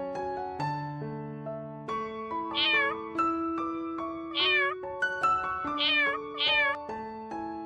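A small young animal cries four times in short, high calls that rise and then fall in pitch, over gentle piano music.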